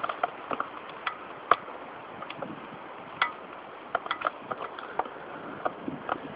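Footsteps on a dry forest floor: irregular sharp snaps and clicks of twigs and litter underfoot over a faint steady hiss, the loudest snap about one and a half seconds in.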